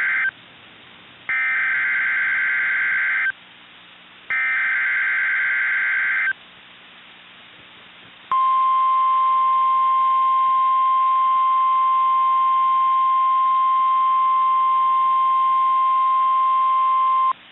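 EAS alert on NOAA Weather Radio. The tail of one SAME header data burst and then two more harsh warbling digital bursts sound, each about two seconds long and a second apart. After a short gap, the single steady 1050 Hz weather radio warning alarm tone sounds for about nine seconds and cuts off. Together they signal the start of a tornado watch alert.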